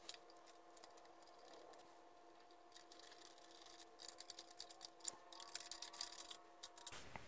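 Near silence with faint small clicks and taps of carburetor parts being handled and fitted, growing busier about four seconds in.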